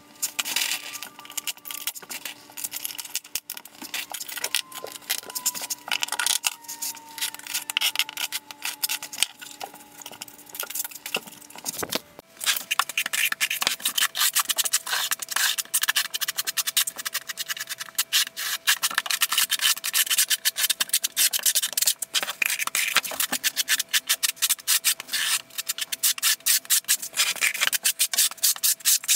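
Notched steel trowel scraping thinset mortar across a Schluter Ditra uncoupling membrane in quick, repeated strokes. The scraping is lighter, with scattered clicks, for about the first twelve seconds, then louder and denser after a short break.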